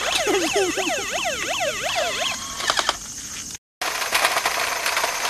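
Toy R/C crash car's built-in electronic siren, set off by its collision sensor, yelping in quick rising-and-falling sweeps for about two seconds, then stopping. Later a rough crackling noise from the toy car driving over gritty asphalt.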